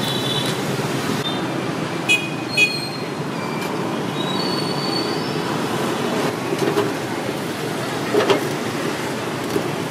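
Street traffic noise: a steady rumble of passing motorbikes and cars, with a few short high-pitched tones around two seconds in and a couple of light knocks near the end.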